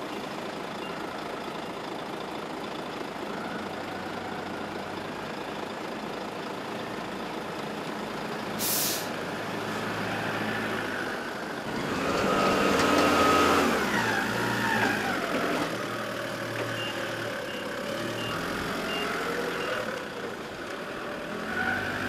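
Heavy trucks running at idle, with a short air-brake hiss about nine seconds in. From about twelve to fifteen seconds an engine revs up and down, louder. Faint short beeps follow.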